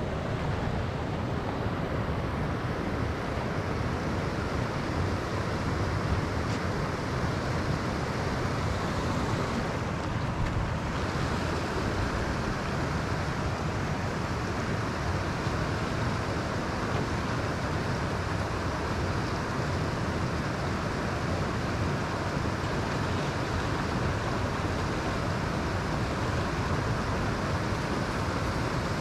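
Steady rushing noise with no distinct event standing out.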